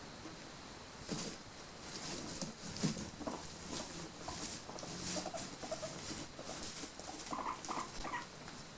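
Pet guinea pigs moving about in their cage: a run of short rustles and clicks, with brief soft squeaks in the second half.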